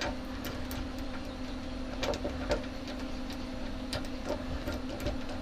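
Light metallic clicks and taps at irregular intervals as nuts are handled and threaded onto screws of a rotary attachment, over a steady low electrical hum.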